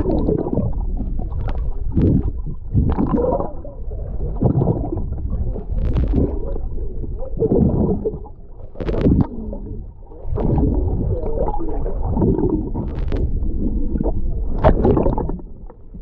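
Underwater water sound picked up through a submerged action camera: muffled gurgling and sloshing in irregular surges, with a few sharp clicks.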